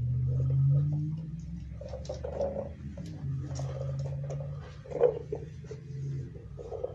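A puppy chews and paws at a hard plastic treat-dispensing ball on a hardwood floor, making small scattered clicks and knocks. There is one louder knock about five seconds in.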